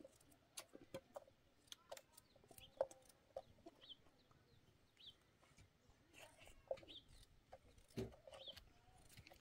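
Faint, scattered clicks of a knife working on potatoes as they are peeled over a pot of water. Short, soft bird calls sound now and then in the background.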